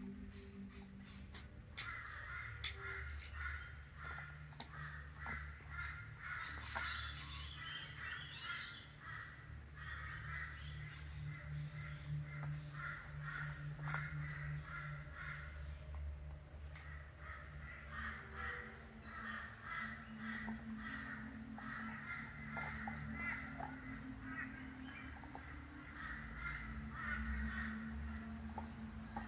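A Belgian Shepherd dog chewing raw chicken bones, with many short sharp crunches and cracks. Birds call over and over in the background.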